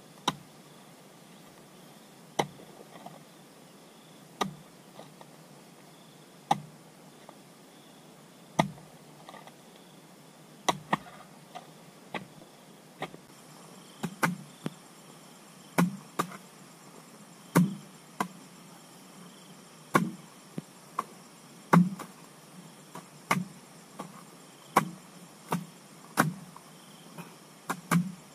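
Repeated chopping strikes of a hand tool, one about every two seconds at first, quickening to about one a second from about halfway through.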